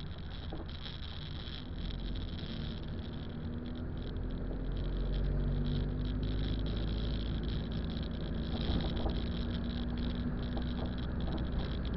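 A car's interior noise while driving: steady engine and tyre rumble, heard from inside the cabin, growing louder about four seconds in.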